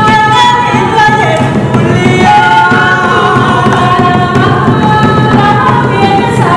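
Women's voices singing together in long held notes that slide between pitches, over hand drums: Venezuelan tambor music.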